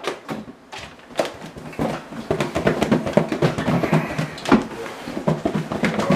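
Kitchen clatter: a string of sharp knocks and clicks, with a busy background texture building from about two seconds in.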